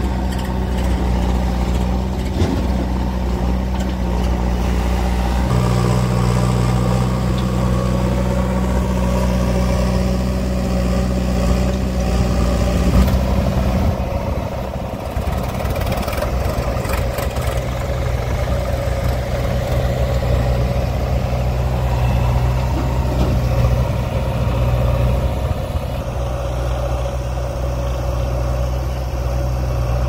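Diesel engines of a JCB 3DX backhoe loader and a tractor running steadily, the engine note shifting a few times.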